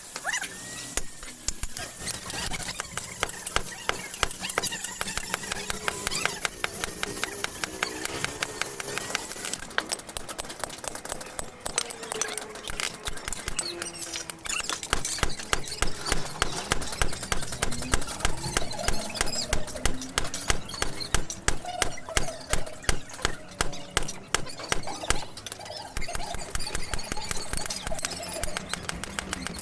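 Blacksmith's hammer striking metal over and over, forging a khukuri blade; the blows come thick and fast and are loudest from about fifteen seconds in.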